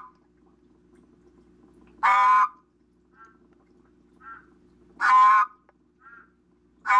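Adult male Brazilian horned frog (Ceratophrys aurita) calling: three loud, hoarse, metallic-sounding croaks, each about half a second, about three seconds apart. The call is raspy, like a heavy smoker's voice.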